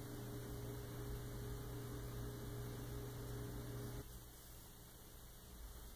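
Low, steady electrical hum over a background hiss. The hum cuts off abruptly about four seconds in, leaving only faint hiss. No knocks or bangs are heard.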